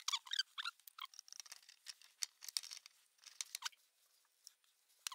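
Faint, irregular clicks and scrapes of small metal and plastic parts being handled, as the brushes of a winch's electric motor are fitted during reassembly.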